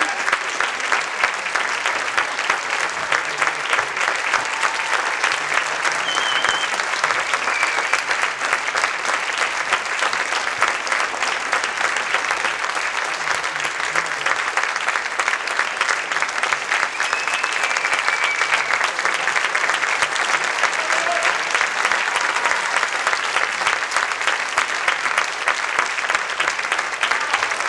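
Theatre audience applauding steadily: a dense, even clapping that keeps up throughout.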